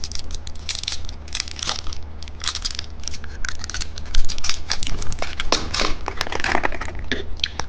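Plastic candy wrapper crinkling and tearing as it is unwrapped, a dense run of irregular crackles.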